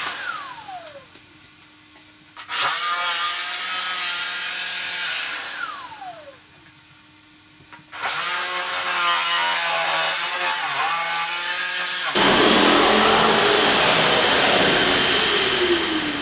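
Handheld electric power tool working the edge of a wooden mantle to a scribed line. It runs in bursts, and each time it is switched off the motor's pitch falls as it spins down, with short quiet gaps between. The last burst is the loudest and coarsest, cutting hard into the wood before it too winds down near the end.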